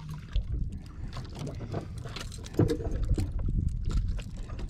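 Water lapping against the hull of a small outrigger fishing boat, with scattered light clicks of pliers working a jig's hook and one brief thump a little past halfway.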